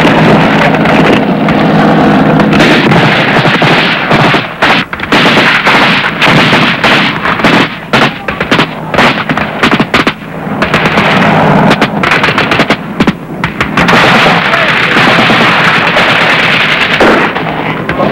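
Heavy gunfire in a firefight: automatic weapons and rifles firing rapid shots that run together over a continuous din, thickest in the middle.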